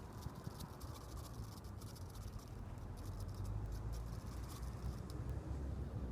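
Low wind rumble on the microphone, growing a little stronger after the middle, with many scattered light clicks and ticks over it.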